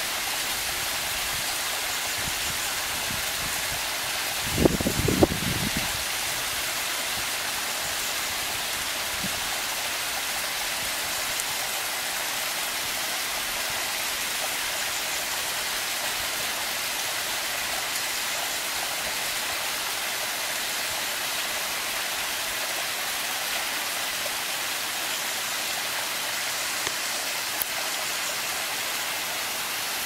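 Small mountain-stream waterfall splashing steadily down mossy boulders. About five seconds in, a brief low thumping rises over it for a second or so.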